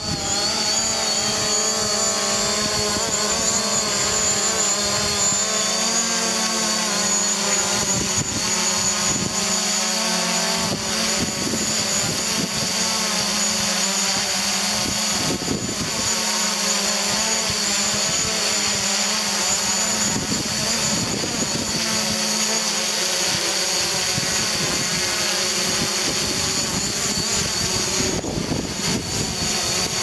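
Propellers and motors of a DJI Mavic Pro quadcopter hovering close by, a steady whine whose pitch keeps wavering as the motors speed up and slow down to hold position.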